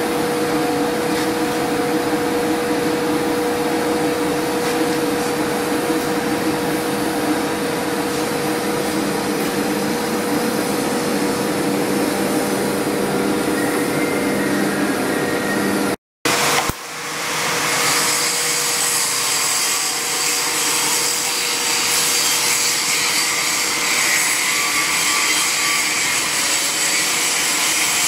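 Steady machine whirr with a constant hum, like a running fan. It cuts out for a moment a little past halfway and comes back steady with a brighter, hissier tone.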